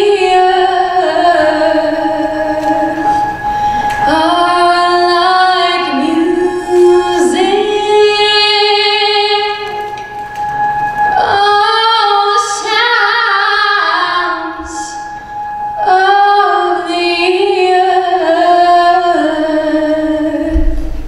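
A woman singing solo into a handheld microphone, in four long sung phrases with short breaths between them.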